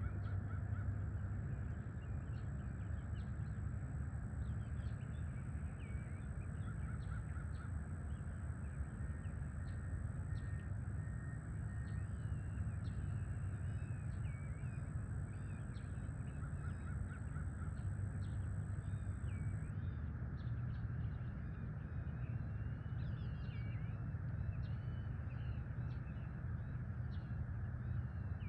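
Outdoor dawn chorus: many birds chirping and calling over a steady low rumble. A thin, steady high tone runs alongside and stops about two-thirds of the way through.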